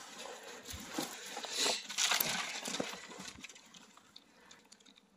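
Rustling and crunching of snow and a branch being handled, with a few sharp clicks; loudest about two seconds in, then fading away.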